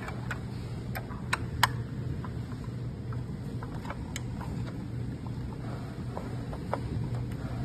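Small sharp metal clicks and taps of hand tools, a screwdriver and an Allen key, against the screws and the motor cover of a treadmill as the cover screws are undone, loudest in a quick run of three a little over a second in. A steady low hum runs underneath.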